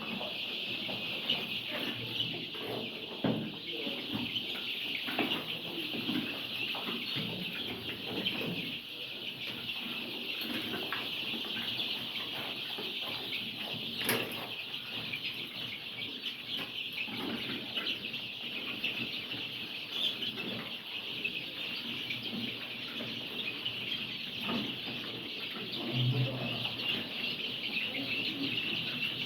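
A large flock of young layer chickens crowding to drink, a dense, unbroken chorus of high chirping from many birds at once, with scattered short knocks and scuffles among them.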